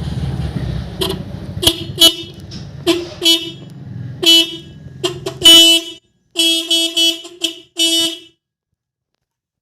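Motorcycle electric horn on a Suzuki Smash sounding in about a dozen short, steady-pitched beeps, one a little longer, as the newly wired horn is tested. A low rumble runs under the first half and stops about six seconds in.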